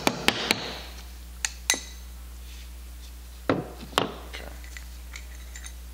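Last two light hammer taps on a brass rod, driving the needle's screw out of a Zenith-Stromberg CD-175 carburetor piston, stopping about half a second in. Then come a few separate metal clicks, and a little later two louder knocks with a short ring as the aluminium piston and rod are handled.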